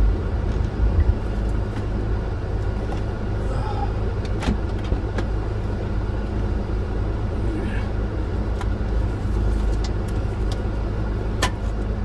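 Vehicle engine running, heard from inside the cab: a steady low rumble with a faint hum, broken by a couple of sharp clicks, one about four and a half seconds in and one near the end.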